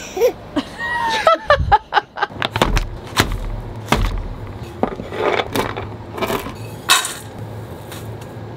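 A toddler laughing briefly at the start, then a run of clicks, knocks and rustles of baking prep: packaging handled and ingredients poured into a stainless steel mixing bowl.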